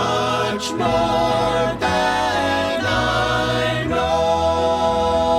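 Gospel song: held notes, sung in a choir-like way, with musical backing.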